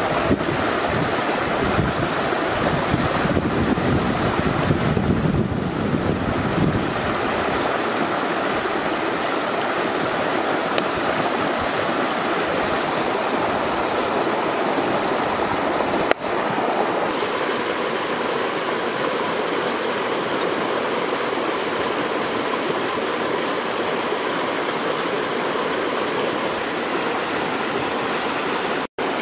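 Steady rush of a flowing river over rocks, with wind buffeting the microphone as a low rumble during the first several seconds.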